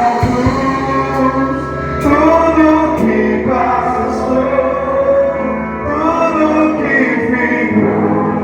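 Christian worship music: voices singing long held phrases together over a steady instrumental backing.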